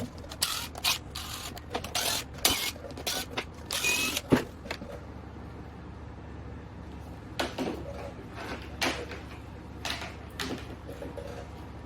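Metal engine parts and hand tools clinking and scraping in two irregular clusters of sharp clicks, while an engine is being taken apart on a bench.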